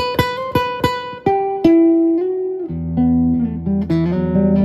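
Nylon-string electric guitar played through a CoolMusic BP-80 100 W amplifier: a quick run of plucked single notes, a held note, then fuller chords with bass notes from about three seconds in.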